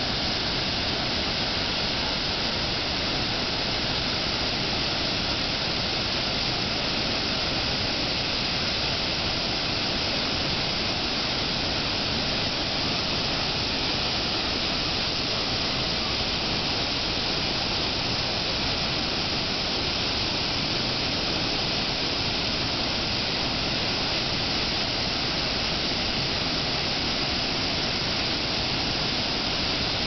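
River water rushing in a steady, unbroken hiss.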